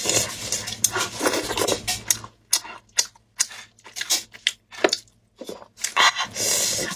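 Whole cooked chicken being torn apart by hand in disposable plastic gloves: irregular wet squelches and tearing, with plastic crinkling and sharp little clicks.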